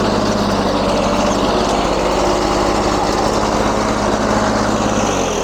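1994 Lawn-Boy 10650 Commercial walk-behind mower's 6.5 hp two-stroke engine running steadily, its pitch starting to drop near the end as it slows.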